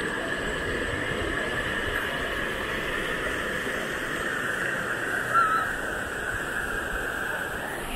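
Steady rush of flowing river water, with one short chirp about five and a half seconds in.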